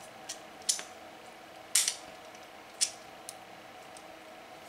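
Short hard clicks and knocks of 3D-printed plastic printer parts being handled and fitted together, about five separate clicks, the loudest just under two seconds in.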